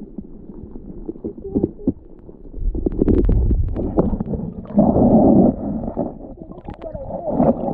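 Muffled underwater sound from a camera submerged in a stream: water moving against the microphone with a low rumble and gurgling, plus scattered small clicks and knocks. The rumble swells about three seconds in, and a louder rush of water comes about five seconds in.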